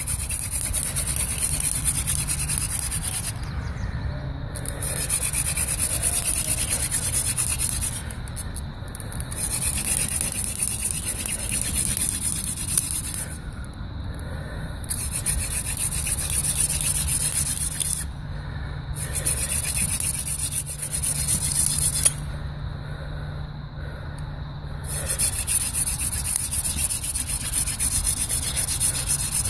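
Friction-fire hand drill: palms rubbing a wooden spindle back and forth as it grinds into the hearth board, a steady rubbing hiss in spells of three to four seconds, broken by short pauses when the hands go back to the top of the spindle. About six spells of drilling, producing smoking dust.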